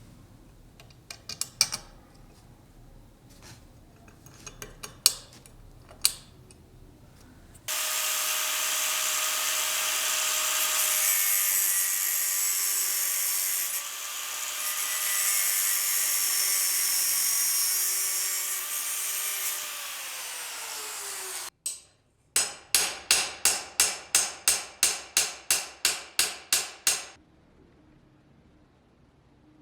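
Restoration work on a rusty knife: a few light clicks, then a power tool runs steadily for about fourteen seconds, its pitch dropping just before it stops abruptly. After that come about fourteen even hand-worked strokes, about three a second.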